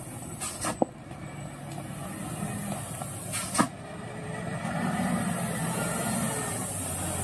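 Diesel engine of a heavily loaded Mitsubishi Fuso Super Great truck running as it creeps past close by on a rough dirt road, growing louder about five seconds in. Two sharp knocks, one near the start and one about three and a half seconds in.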